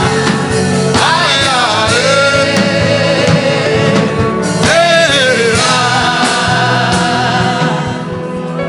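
Gospel worship music with a sung vocal over sustained instrumental chords; long wavering sung phrases come in about a second in and again around the middle.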